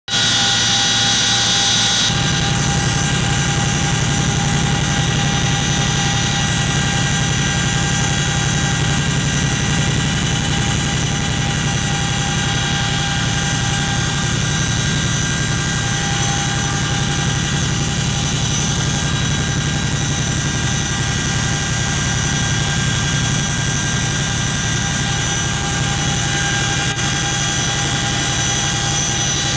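Cabin noise of a CH-47 Chinook twin-rotor helicopter in flight: its turboshaft engines and transmission make a steady whine over a fast, even thud of the rotor blades. The rotor beat grows louder about two seconds in.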